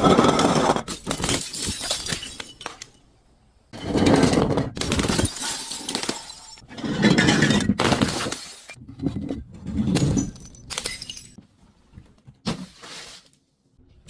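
Glass bottles breaking and being crushed: a series of loud shattering, crunching bursts about every three seconds, with smaller crackles of glass between them.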